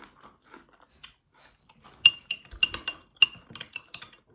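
Cutlery clinking against a plate or dish. There are faint soft sounds at first, then a quick run of sharp, ringing clinks from about two seconds in.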